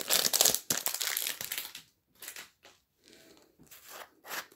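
Clear plastic packaging crinkling as a small jar is unwrapped by hand: a dense stretch of crinkling for about the first two seconds, then a few scattered crinkles.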